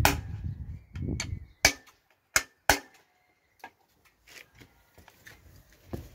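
Sharp knocks and clanks from hand work on a hanging engine: four hard knocks in the first three seconds, over a low rumble at the start, then a few faint taps.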